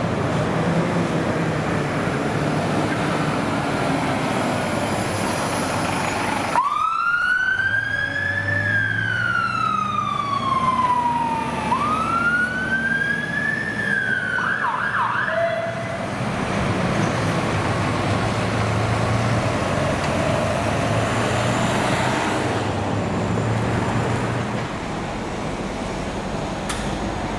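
Emergency vehicle siren over road traffic: starting suddenly about six seconds in, a slow wail that rises and falls twice, then a few quick yelps before it cuts off after about nine seconds. Traffic and engine noise run underneath.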